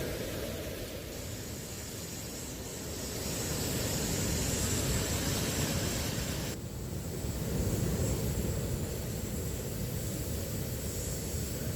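Sea waves washing onto a beach: a steady rushing noise that swells twice, with an abrupt change about two-thirds of the way through.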